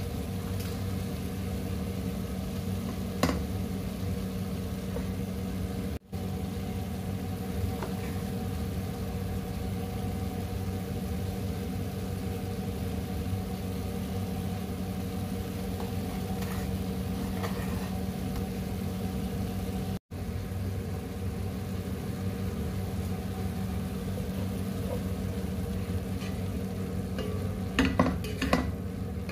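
A steady mechanical hum of a kitchen appliance, with a sharp utensil click about three seconds in and a cluster of clicks near the end.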